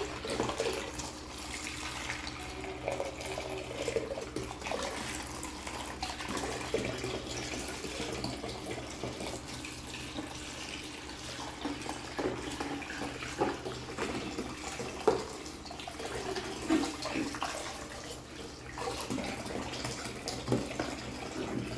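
Tap water running steadily into a sink while things are rinsed under it, with scattered small knocks and splashes.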